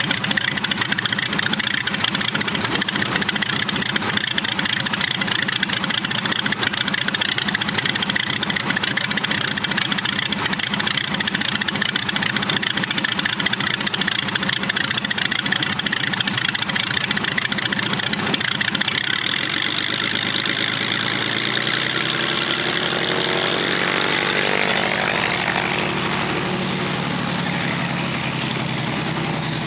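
Zlin Z-526 F's inverted six-cylinder air-cooled piston engine and propeller running steadily at low power. About twenty seconds in the sound turns into a clearer drone whose pitch rises as power comes on and the aircraft starts to taxi.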